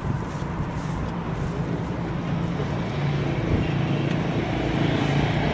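Airbus A319 jet engines running as the airliner rolls along the runway after landing. There is a steady low hum, and the sound grows louder from about halfway through as the aircraft turns toward the listener.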